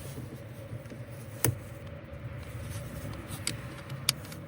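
One sharp click about a second and a half in, then a few fainter clicks near the end, over a low steady hum: hardware and tools being handled while a tow mirror is fitted to a truck door.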